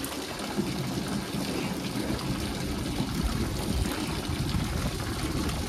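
Water from a hose pouring steadily into a half-filled concrete pool, splashing as it hits the surface.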